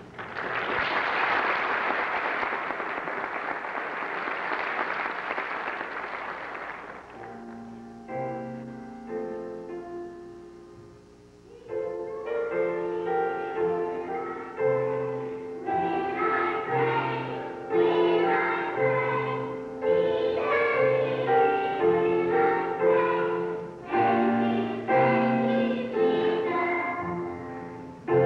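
A few seconds of audience applause, then a piano starts an introduction, and a young children's choir sings with the piano accompaniment.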